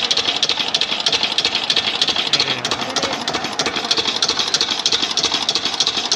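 Single-cylinder stationary diesel engine with twin flywheels, driving a water pump at a well, running steadily just after being started, with an even, rapid knocking beat of its firing strokes.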